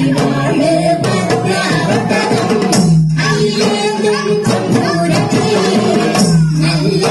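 Kerala folk song (nadan pattu) performed live: a male lead voice over beating drums and other percussion. Each sung phrase ends on a long held low note, about every three seconds.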